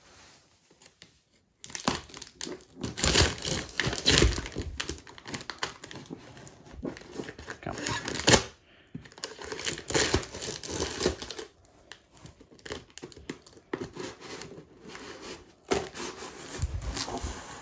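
Scissors cutting along the taped seam of a plastic-wrapped cardboard box, the packing tape and plastic wrap crinkling and tearing. It starts about a second and a half in and goes in irregular bursts with short pauses.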